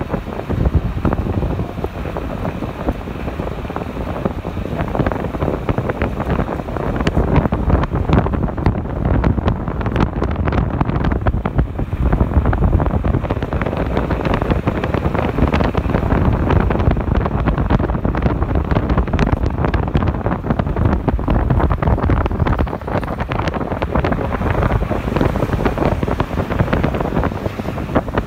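Wind rushing and buffeting the microphone at the side window of a moving car, over a steady road rumble.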